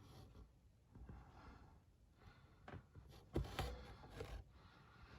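Mostly quiet, with a few faint, short knocks and handling noises about three to four seconds in.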